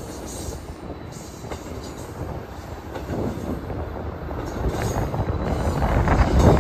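Intermodal freight train's container well cars rolling past, with a steady rumble of wheels on the rails that grows louder toward the end.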